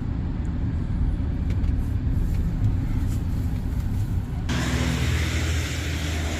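A vehicle running, heard from inside the cab: a steady low engine and road rumble. About four and a half seconds in, a steady rushing noise suddenly comes in over it and holds.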